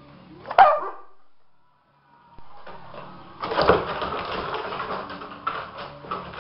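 A dog barks once, sharply, about half a second in. After a short lull, dogs scuffle in play, with a dense clatter of quick clicks and knocks that is loudest around the middle.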